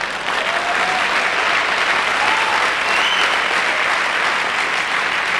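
Audience applauding, with a few faint voices calling out over the clapping.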